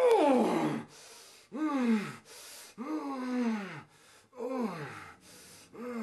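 A person's drawn-out moans, about four of them, each sliding down in pitch, with sharp breathy gasps between them.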